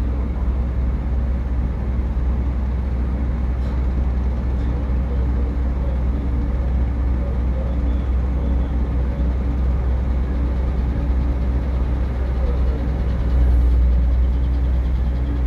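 Ship's engine running with a steady low rumble and a constant hum, swelling slightly near the end.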